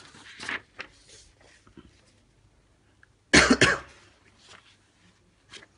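A person coughs, two quick loud coughs about three and a half seconds in. Before that, paper pages rustle as they are handled.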